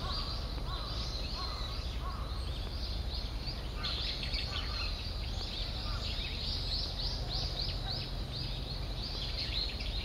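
Small birds chirping, many quick high notes overlapping without pause, over a steady low hum.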